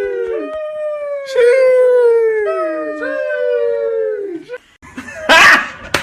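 Dog howling: a series of long, drawn-out howls, each sliding down in pitch at its end. About a second before the end a loud, harsh noisy burst cuts in.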